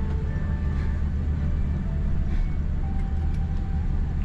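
Steady low cabin drone of a Boeing 787-8 Dreamliner taxiing after landing, with light music playing over it.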